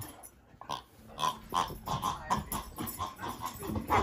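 Yellow rubber pig chew toy giving a quick run of short oinking squeaks as a boxer dog chews on it, several a second, starting about a second in.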